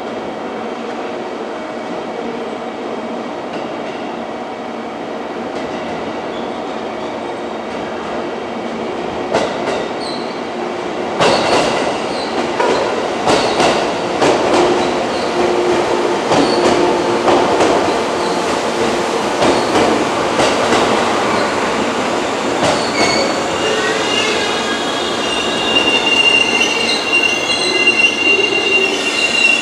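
JR 415 series electric trains moving through the station. A steady running hum gives way, about a third of the way in, to wheels clacking over rail joints and points. In the last few seconds there is a high-pitched wheel squeal.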